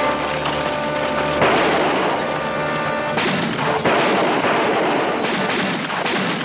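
Dramatic action music with several gunshots from a revolver, each a sudden loud blast that trails off.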